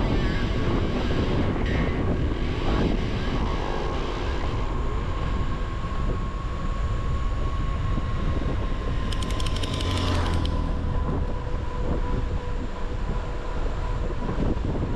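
Steady wind buffeting and road rumble from riding at speed, with a thin tone that slowly sinks in pitch. A brief burst of rapid ticking comes about nine to ten seconds in.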